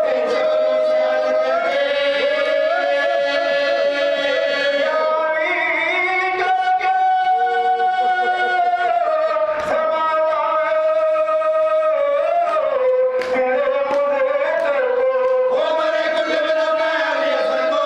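Men's voices chanting a marsiya, a Shia elegy, together into a microphone in long, drawn-out melodic lines. Two sharp knocks come partway through.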